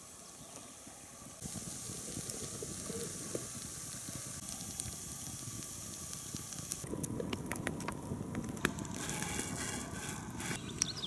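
Small wood campfire crackling, with scattered snaps and pops over a steady hiss. The pops come more often from about seven seconds in.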